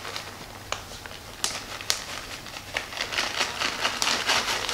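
Plastic bag of shredded cheddar cheese crinkling as it is tipped and shaken out into a crock pot. A few separate sharp crackles come first, then denser, steady rustling from about three seconds in as the cheese pours.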